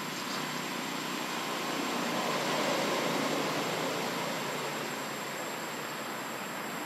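Steady rushing outdoor background noise that swells slightly around the middle and eases off again, with a thin high whine throughout.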